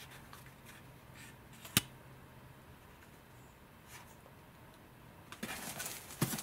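Quiet handling of packing material, with a single sharp click a little under two seconds in. Near the end comes a burst of rustling and crinkling packaging with another click.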